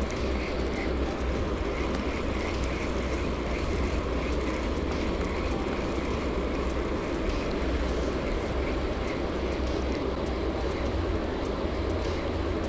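Spinning reel being cranked steadily on a retrieve, its rotor whirring with a faint rhythmic ticking through the first half. A steady low rumble lies under it.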